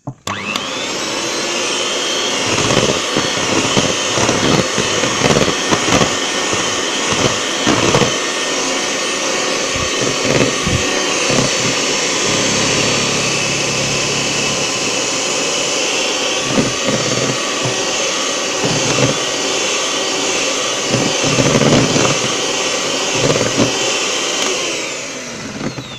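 Electric hand mixer whining up to speed and running steadily as its beaters whisk egg-yolk batter in a plastic bowl while oil and milk are beaten in, with irregular knocks as the beaters hit the bowl. It winds down near the end as it is switched off.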